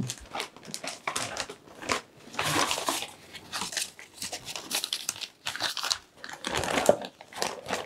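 Plastic bag crinkling and rustling as it is handled, in irregular bursts.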